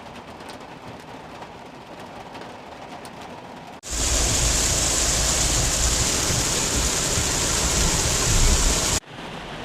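Heavy rain from a thunderstorm downpour: a steady hiss that cuts abruptly about four seconds in to a much louder, denser pour with a low rumble, which then cuts off suddenly near the end.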